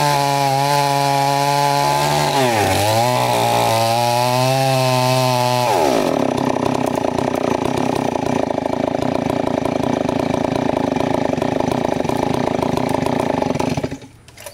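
Nakaya two-stroke chainsaw cutting into a large tree trunk at full throttle, its pitch dipping twice as it bogs under load. About six seconds in it drops to a lower, rougher idle, then cuts out near the end.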